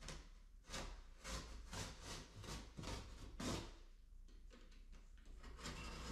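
Corrugated cardboard of a large shipping box being cut along its front corner: a run of short scraping strokes about two a second, a brief pause, then a few fainter strokes near the end.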